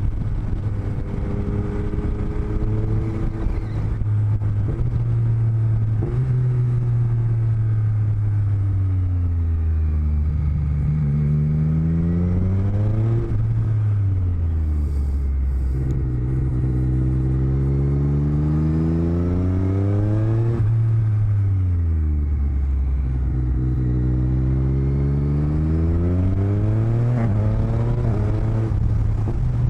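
Motorcycle engine picked up by microphones in the rider's helmet, its pitch sliding down and climbing back up several times as the bike slows and accelerates, over a steady rush of wind noise.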